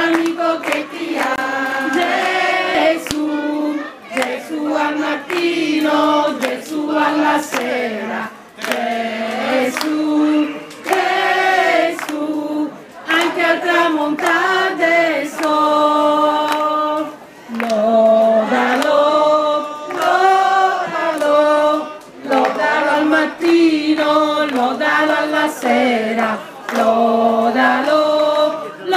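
A group of mostly women's voices singing a devotional song to St Joseph together, in sung phrases of about two seconds with short breaks between them, while hands clap along.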